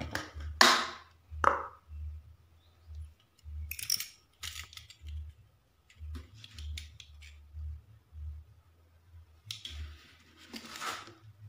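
Clear plastic candy jar being handled and turned over on a concrete floor: a series of brief scrapes, knocks and light clicks of hard plastic.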